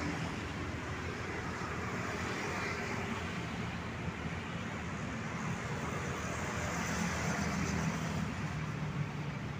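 Steady street traffic noise: cars and other road vehicles passing, with the low hum of passing engines swelling a little around the middle and again near the end.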